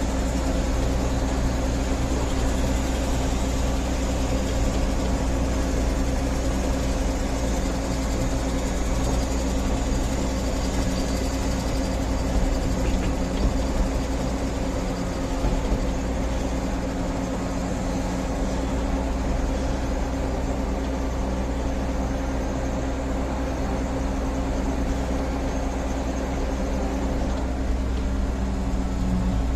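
Heavy earthmoving machine's engine running steadily at a constant speed, its low tone holding at one pitch without revving.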